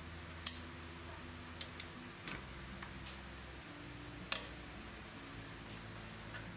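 Light metal clicks and taps as a chuck key and small metal parts are handled against a drill press head. Two sharp clicks, about half a second and about four seconds in, stand above a few softer ones.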